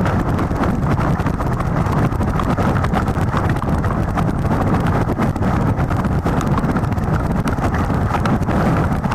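Strong wind buffeting the nest camera's microphone: a loud, steady low rumble with scattered small clicks and knocks throughout.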